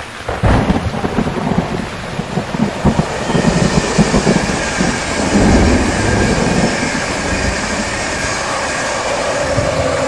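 Thunderclap cracking about half a second in and rolling for several seconds over steady heavy rain. A passing electric passenger train sits beneath it in the mix.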